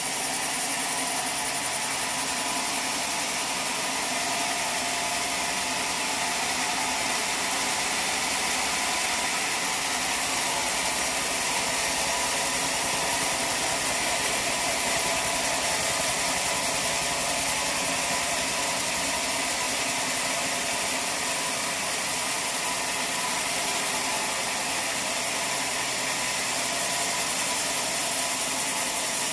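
Sawmill machinery running steadily with an even, unbroken mechanical whine and rumble, typical of a log being milled.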